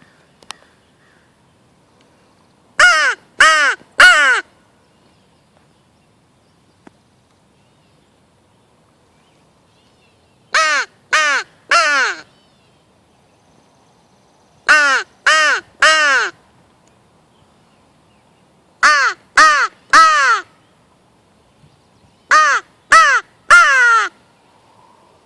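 Crow caws blown on a hand-held crow call, used as a turkey locator call: five sets of three short, loud caws, each caw rising and falling in pitch, with pauses of a few seconds between sets.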